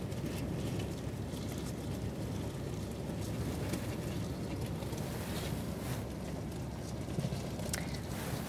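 Steady low rumble of a vehicle idling in stopped traffic.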